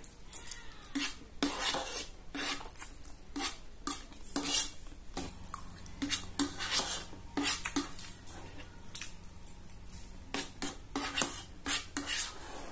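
Metal fork clinking and scraping against a tray as the last instant fried noodles are gathered up, with close-up slurping and chewing of the noodles. The clinks come irregularly, several a second at times.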